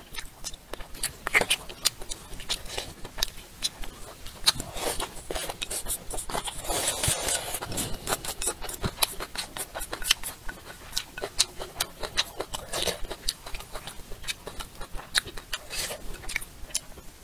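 Close-miked chewing and mouth sounds of a person eating: an irregular run of sharp, wet clicks, busiest about seven seconds in.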